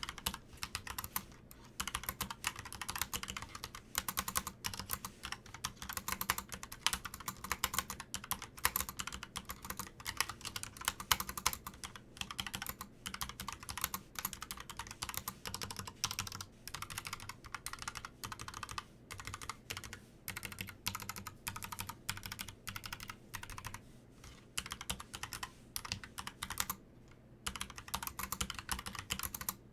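Logitech POP Keys mechanical keyboard being typed on steadily, a fast, uneven patter of key clicks from its brown tactile switches, with a couple of brief pauses near the end.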